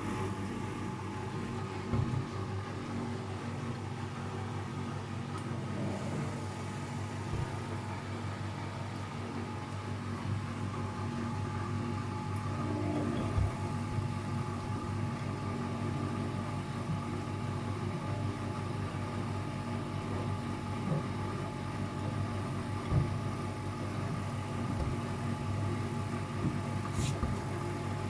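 Luxor WM 1042 front-loading washing machine spinning with an unbalanced load, its motor and drum giving a steady hum. Occasional sharp knocks come from the off-balance drum.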